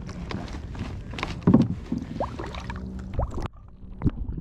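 Lake water splashing and sloshing as a smallmouth bass is lowered into it by hand and released, with the strongest splash about a second and a half in. About three and a half seconds in the sound turns muffled, heard from under the water.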